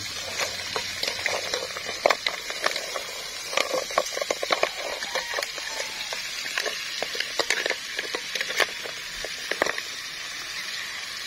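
Clams clattering against one another and the metal pot as they are stirred with a metal ladle: many sharp, irregular clicks over a steady hiss.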